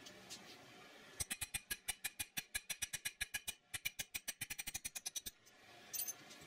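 A fast, even run of sharp metal-on-metal clicks, about ten a second at double speed, lasting about four seconds with a brief pause midway, from hand work seating a steel taper pin in an AR-15 gas block's cross-pin hole.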